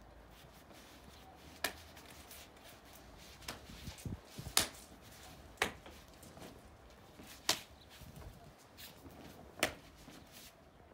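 Sharp snaps and slaps from a martial artist's strikes and footwork during a solo form, about seven at uneven intervals, the loudest a little before the middle, over a faint low rumble.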